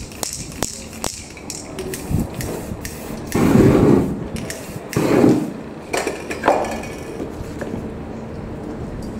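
Aerosol spray-paint cans hissing in short bursts, the two longest near the middle, amid repeated clicks and knocks of metal cans being handled and set down.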